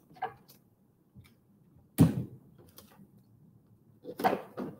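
Hands working sticky tape and plastic wrap onto a foil-lined cardboard box: a few short rustles, a sharper crackle about two seconds in, and more rustling near the end.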